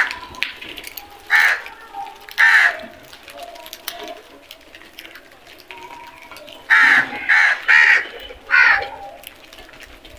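House crows cawing: two harsh caws in the first few seconds, then a quick run of three and one more caw about two-thirds of the way through.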